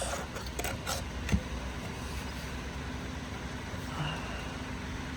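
Steady low background hum with a few light clicks and taps in the first second and a half, the sharpest about 1.4 s in: small handling noises while the old torque converter's hub is being measured.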